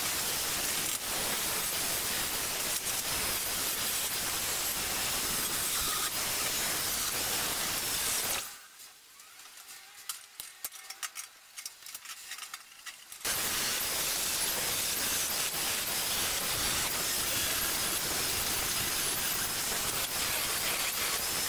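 A steady hiss, with no engine or motor tone in it. About eight seconds in it drops away for a few seconds to faint scratching and light ticks of a pointed hand tool marking a steel frame tube, then the hiss returns.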